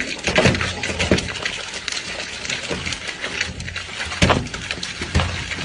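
Rapid wet crunching and slurping as a man gnaws bite after bite through a whole watermelon held to his mouth, with a couple of louder crunches near the end.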